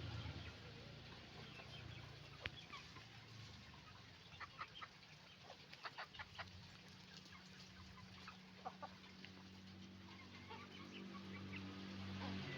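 A flock of chickens clucking and calling, with a quick cluster of sharp calls in the middle, over a steady low hum.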